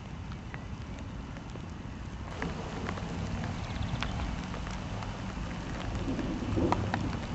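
Gusty storm wind rumbling on the microphone, with scattered raindrops tapping; it grows louder about two seconds in.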